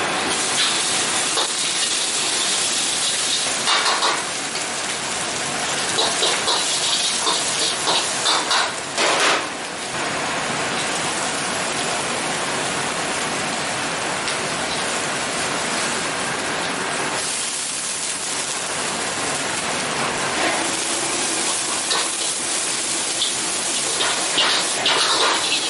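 Noodles and liquid sizzling in a carbon-steel wok over a strong gas flame: a steady loud hiss throughout. A steel ladle clinks and scrapes against the wok now and then, near the start, around four to eight seconds in, and near the end.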